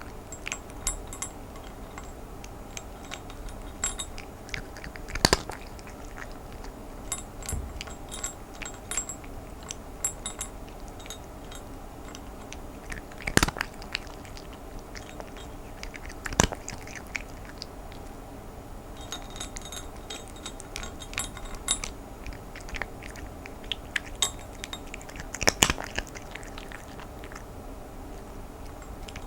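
Cat crunching dry kibble: a steady run of small chewing clicks with a few sharp, loud crunches spread through.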